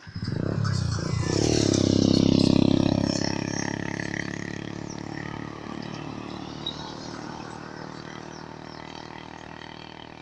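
A vehicle speeding past close by on a tarmac road. Its engine and tyre noise comes in suddenly and is loudest about two to three seconds in, dropping in pitch as it passes, then slowly fades as it drives away.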